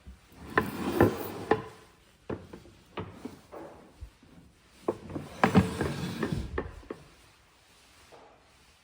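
Wood being worked by hand: clusters of sharp knocks and scraping rubs in two bursts, about a second in and about five seconds in, with a few single knocks between.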